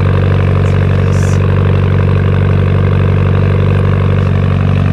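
Car engine idling steadily, with an even low hum and a fine rapid pulse.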